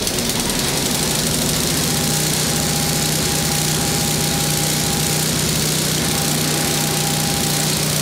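Craftsman snowblower's 5.5 hp Tecumseh single-cylinder four-stroke engine running steadily on a test run after new auger and drive belts were fitted.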